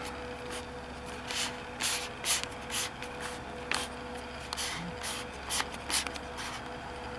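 Irregular short rustles and rubbing scrapes from a handheld camera being handled and moved, over a faint steady electrical hum.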